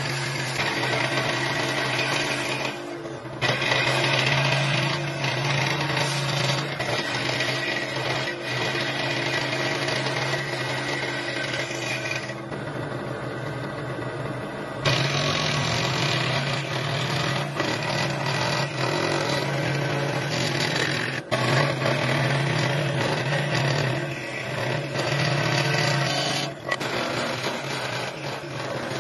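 A woodworking power tool running steadily as it cuts or shapes wood, with a few brief dips in level.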